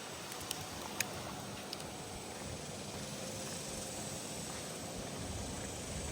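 Steady outdoor hiss of river ambience, with a few faint clicks in the first two seconds.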